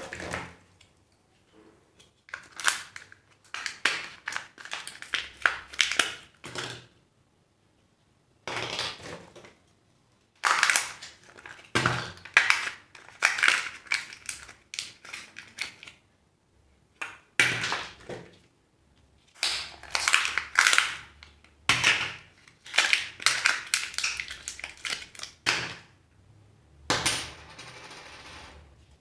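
Surprise eggs being unwrapped and opened by hand: plastic and foil wrappers crinkling and tearing, and plastic capsules snapping open. The crackling comes in bursts of a few seconds with short pauses between them.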